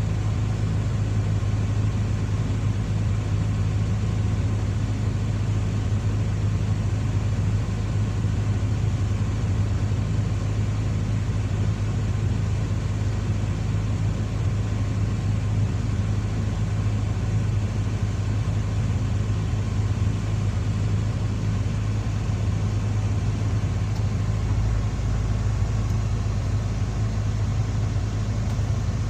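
Hydraulic excavator's diesel engine running at a steady speed, a constant low drone.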